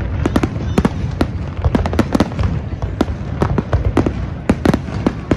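Aerial fireworks display: a rapid, irregular barrage of shell bursts, several bangs a second over a continuous low rumble.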